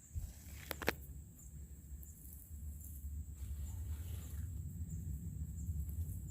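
Outdoor field ambience: a steady high insect buzz over a low rumble of wind on the microphone, with one sharp click about a second in.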